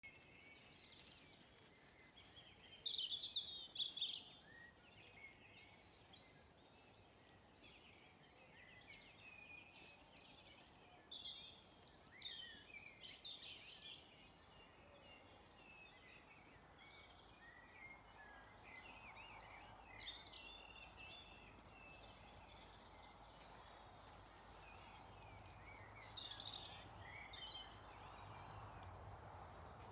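Faint birdsong: small birds singing short, quick, high chirping phrases in bursts every few seconds, the loudest about three seconds in, over a dim outdoor hush.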